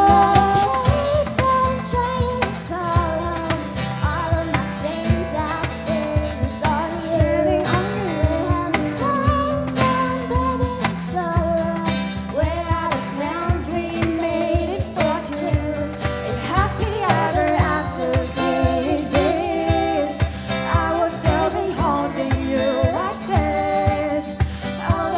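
Vocal ensemble singing a pop song, several voices together in harmony over a steady beat.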